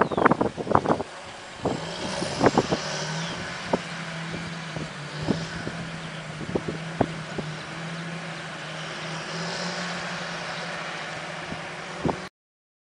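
John Deere 8330 tractor's six-cylinder diesel running steadily under load while it pulls a seedbed cultivator, heard as a steady drone under a hiss, with scattered clicks and knocks. A cluster of loud knocks and thumps comes in the first second, and the sound cuts off suddenly near the end.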